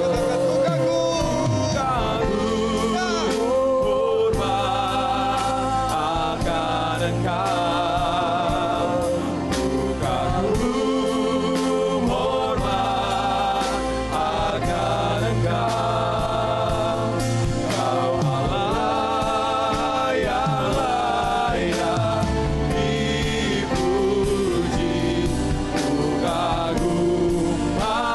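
Live gospel worship music: a man leading a slow praise song with many voices singing along, over a band with drums and electric bass.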